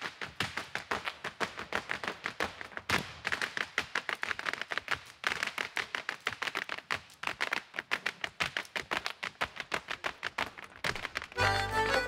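Irish hard-shoe dancing with no accompaniment: a troupe's shoes rapping out dense, rapid taps on a wooden stage. Near the end the fiddle and band come in.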